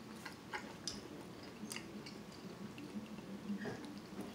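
A person chewing soft food at close range, with several short sharp clicks scattered through.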